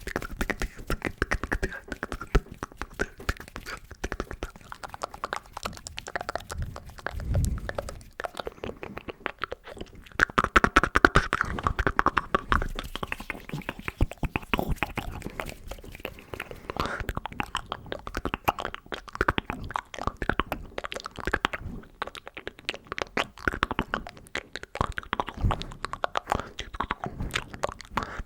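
Close-miked ASMR mouth sounds: rapid wet clicks and smacks in an uneven stream, with a few low thumps and a louder stretch about ten seconds in.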